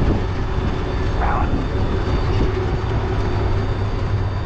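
Auto-rickshaw engine and road noise heard from inside the passenger compartment while driving: a steady low drone. A brief higher sound comes about a second in.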